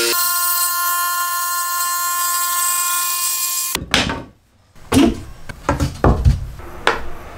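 Makita JV184DZK cordless jigsaw cutting a wooden board with a steady high whine, stopping suddenly a little under four seconds in. After a short pause come several sharp wooden knocks and clacks as the clamps and guide board are handled.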